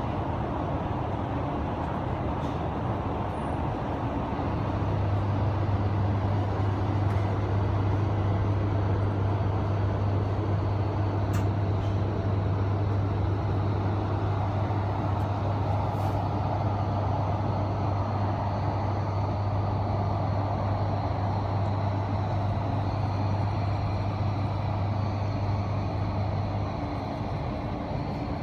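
Heathrow Express electric train running, heard from inside the passenger carriage: a steady rumble and rolling noise with a low hum that strengthens about four seconds in and eases near the end.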